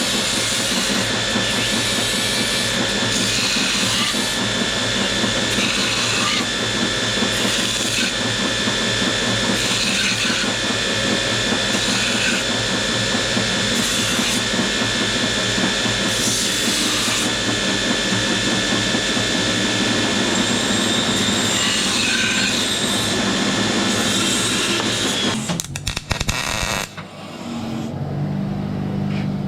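A power tool running steadily on metal, with a high whine and slight swells every couple of seconds. It stops abruptly about 25 seconds in, leaving a quieter low hum.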